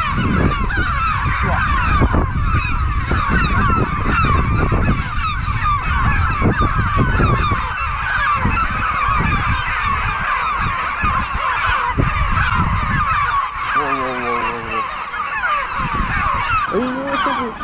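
A colony of gulls calling overhead: many overlapping cries at once, without a break. Under them runs a low rumble of wind on the microphone. A single lower, drawn-out call comes about fourteen seconds in.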